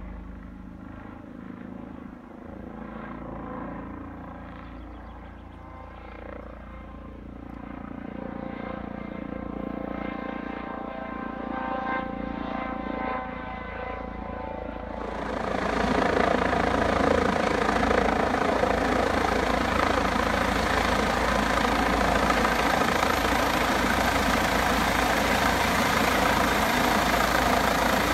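Airbus EC135 rescue helicopter coming in to land, its rotor sound growing steadily louder as it approaches. About halfway through, it suddenly becomes much louder and fuller, with a strong rushing noise, as the helicopter descends low over the field.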